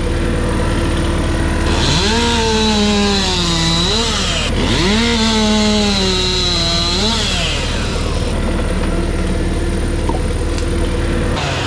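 Chainsaw revved up twice in a row, each run a couple of seconds long, its pitch sagging under load as it cuts and then dropping back. Underneath, an engine idles steadily.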